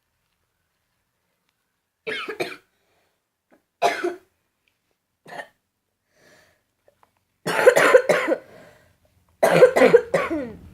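A person coughing in a series of short bursts starting about two seconds in, with two longer, louder coughing fits near the end.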